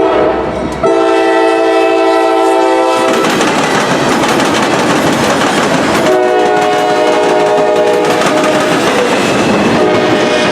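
Freight locomotive's multi-chime air horn blowing a chord, broken off briefly once near the start. After about three seconds the horn gives way to the roar of the passing train, with wheels clacking over the rail joints. The horn sounds again about six seconds in.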